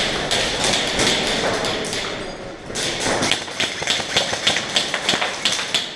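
Airsoft guns firing: a rapid, irregular run of sharp clicks and taps, thickest in the second half.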